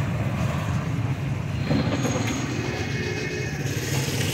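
Street traffic noise: a steady low engine rumble, with a faint high-pitched squeal from about two to three and a half seconds in.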